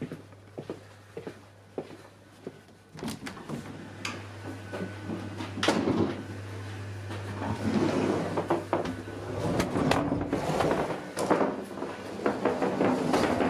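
Rattling and knocking inside a train carriage over a steady low hum, with regular knocks about every half second at first and the clatter growing louder after about three seconds.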